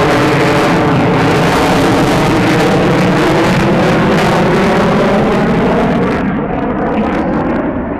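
Loud jet engine noise from an F-22 Raptor's twin Pratt & Whitney F119 turbofans as the fighter flies overhead. About six seconds in the sound dulls, losing its hiss, and drops a little in level.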